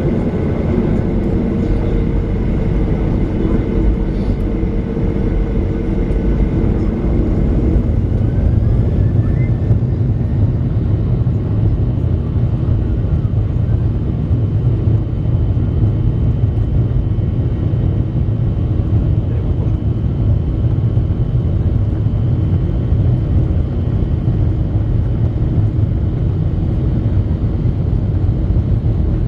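Boeing 737's twin turbofan engines heard from inside the cabin during the take-off roll. A few steady whining tones in the first several seconds give way to a steady roar with a heavy, deep rumble as the airliner speeds down the runway.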